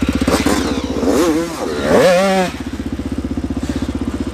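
Yamaha YZ85 two-stroke dirt bike engine running close by with a steady pulsing beat, revving up from about a second in and falling back at about two and a half seconds.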